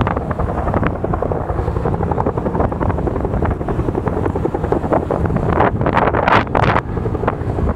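Firefighting helicopter with a slung water bucket, its rotor and engine running steadily overhead, mixed with wind buffeting the microphone in gusts, strongest about two-thirds of the way in.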